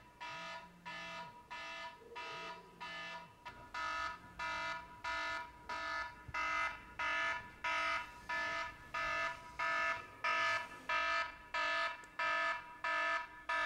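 iPhone alarm ringing: a buzzy electronic tone pulsing on and off about three times every two seconds, getting louder about four seconds in and again a few seconds later.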